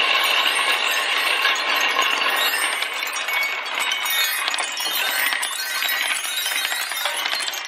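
Many glass marbles clinking and rattling as they spin around a metal funnel bowl, with a ringing tone in the first couple of seconds. Toward the middle and end, a marble rolls down the metal bars of a toy xylophone in the marble run.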